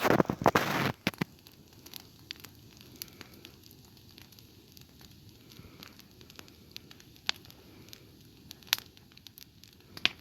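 Dying campfire crackling softly, with scattered single pops. A louder noisy rustle fills the first second.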